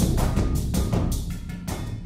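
Background music with a percussive drum beat, growing quieter toward the end.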